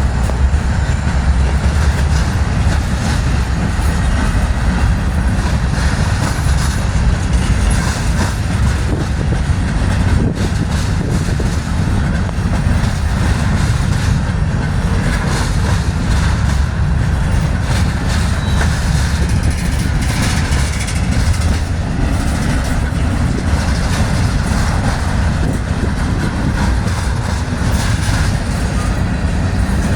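A freight train rolling past on the rails: a loud, steady rumble from wheels and cars that keeps on without a break.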